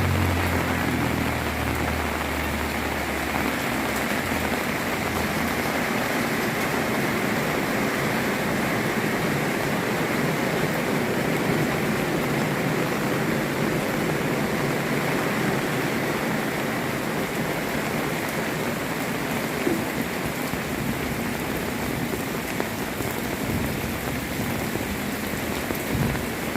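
Heavy rain pouring down steadily. A low hum fades out in the first few seconds.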